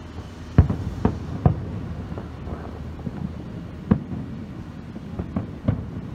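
Aerial fireworks shells bursting: a string of sharp booms at uneven intervals, three in quick succession starting about half a second in, another near four seconds and a close cluster near the end, over a steady low rumble.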